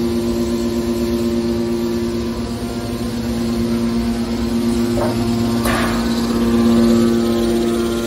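Hydraulic metal baler's power unit running: electric motor and hydraulic pump giving a steady drone with a whine. Two short sharp knocks come about five seconds in.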